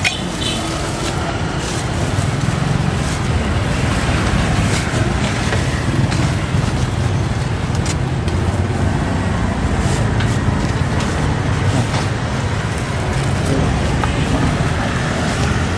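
Steady street traffic noise with a low rumble, with a few light clicks of utensils and containers being handled.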